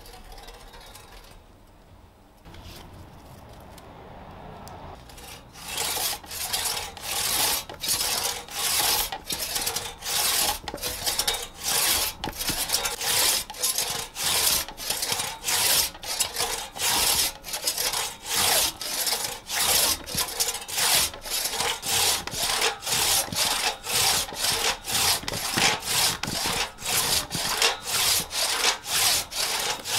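One-man crosscut saw cutting through a green plum log, quiet at first, then a steady back-and-forth rasp from about five seconds in, about two strokes a second.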